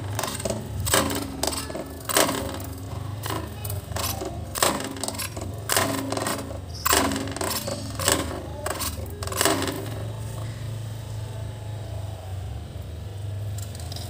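Hard plastic toy vehicles being handled and knocked about: a series of sharp knocks and clatters over the first ten seconds, then only a steady low hum.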